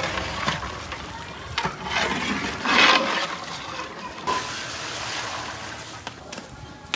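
A long-handled ladle stirring a large pot of boiled chana dal paste, the thick mixture sloshing: three louder splashing surges in the first three seconds, then a softer, steady wash of sound.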